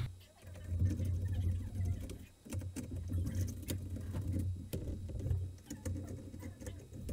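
Hand screwdriver turning out the mounting screws of a CPU heatsink, with scattered small clicks and scrapes of metal, over a low steady hum.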